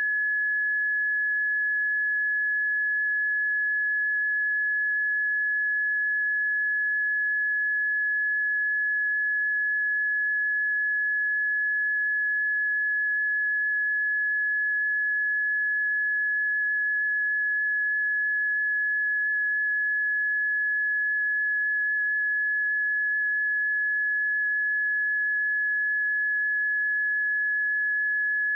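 Seismic early-warning monitor tone: a single steady high sine tone holding one pitch without change, which on this alarm means no earthquake or eruption is being signalled.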